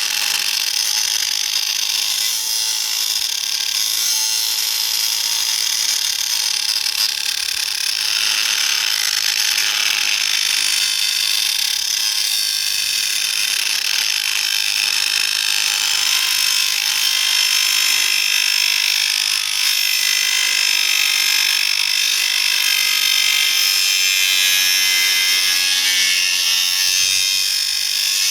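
Angle grinder cutting through the brass body of an old water meter: a loud, steady, high-pitched grinding.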